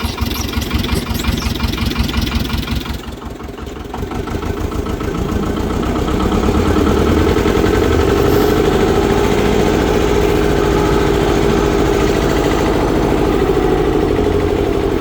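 Engine of earthmoving machinery running. It drops off briefly about three seconds in, then revs up and holds steady and louder from about six seconds, as if working under load.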